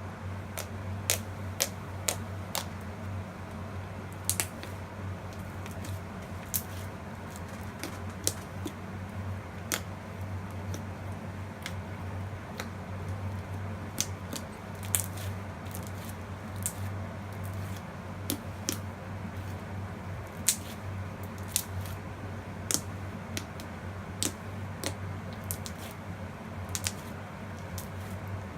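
Slime being squeezed and poked, giving irregular sharp clicks and pops, one or two a second, over a steady low hum.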